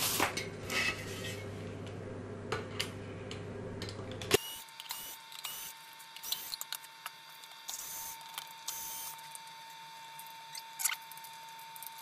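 Handling noises on a workbench: cables dragged across the table, with light clicks and taps from plastic connectors and the plastic housing of a pan-tilt camera mount. About four seconds in the low background hum drops away and a faint steady high whine runs under further rustles and clicks.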